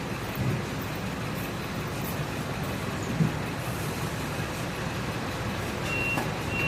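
Steady low rumble of service-bay background noise, like vehicles running nearby. Near the end a vehicle's reversing beeper starts, a repeated high beep.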